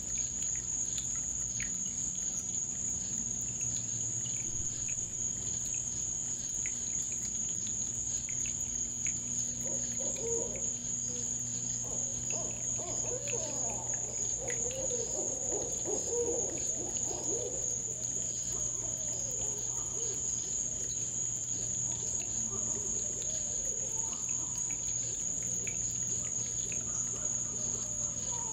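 Steady, high-pitched trilling of a cricket chorus over a low hum. From about ten seconds in, a run of lower, wavering calls lasts several seconds and then fades.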